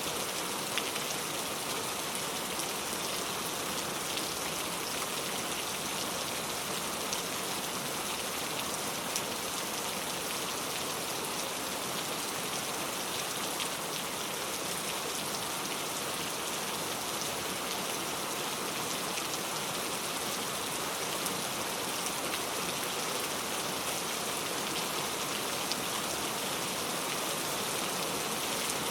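Heavy rain falling steadily, tapping on a leaf-covered road, with scattered sharper drop hits.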